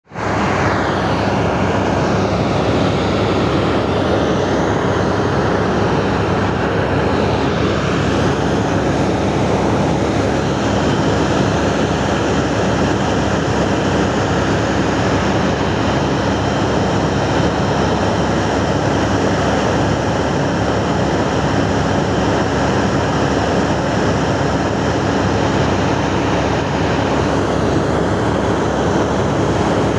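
Open-pit mining drill rig and its air compressor running at full work: a loud, steady mechanical din that starts abruptly at the outset.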